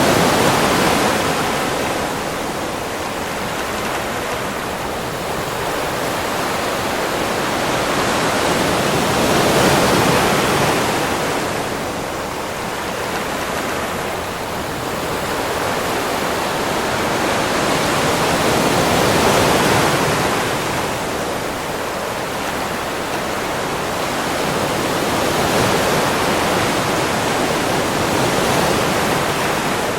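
Sea waves breaking on a beach: a continuous rush of surf that swells and falls back about every ten seconds.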